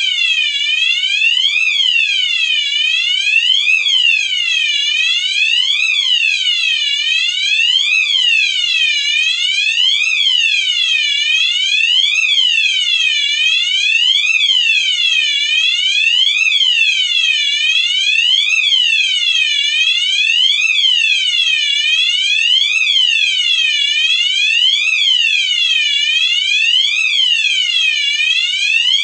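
Alarm clock sounding a loud siren-like alarm: a shrill tone that sweeps up and down in pitch about once every second and a half, without a break.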